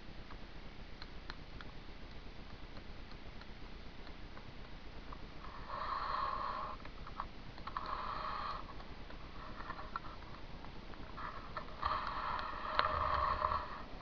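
Woodpecker hammering on a dry tree in short runs of rapid knocks, the dry wood ringing at a steady pitch; about five runs in the second half, each about a second long, the last and loudest nearly two. A few faint single taps come before them.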